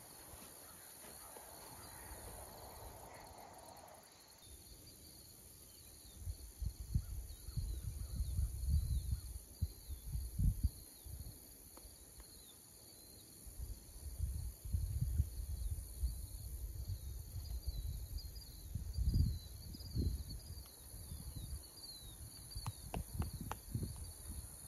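Steady chirring of insects in the grass, with irregular low rumbles and thumps over it from about six seconds in.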